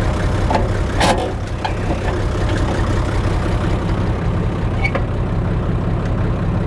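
Massey Ferguson 95X tractor's six-cylinder diesel engine idling steadily, with a sharp knock about a second in and a fainter click about five seconds in.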